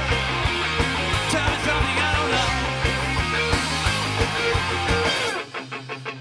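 Live pop/rock band playing, with electric guitars, bass and drums. About five seconds in the bass and drums drop out, leaving a quieter, thinner passage marked by quick, even ticks.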